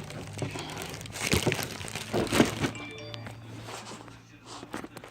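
Plastic bag crinkling and rustling as a boxed car amplifier is handled and turned, with a few louder crackles in the middle, over faint background music.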